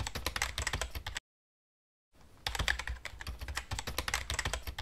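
Keyboard typing sound effect: a fast run of keystroke clicks that stops about a second in, then starts again about two seconds in.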